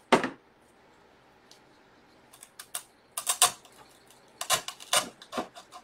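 Quick clicks and rustles of artificial flowers and their plastic leaves being handled and their stems pushed into a foam-filled basket. They come in clusters: one just after the start, then a busier run from about two seconds in to the end.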